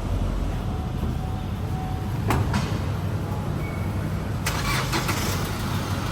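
Chevrolet S10 pickup's engine running with a steady low rumble, a sharp click about two seconds in and a short run of clicks about four and a half seconds in.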